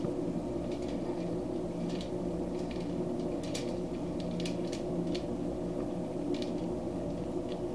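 Fingers working at the membrane on a rack of raw pork spare ribs lying on aluminium foil: scattered faint wet squishes and crinkles, over a steady low hum.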